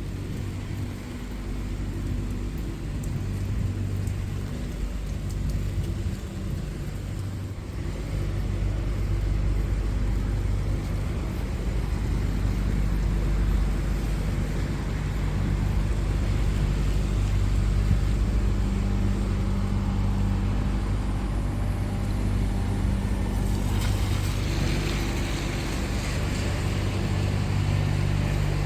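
Motor traffic on a city street: an engine running close by with a steady low hum that gets louder about eight seconds in, and a hiss joining near the end.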